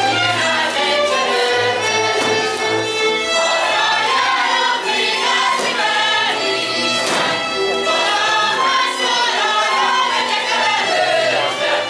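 Live Hungarian folk string band of violins and a bass playing a Hajdúság dance tune, with a group of voices singing along.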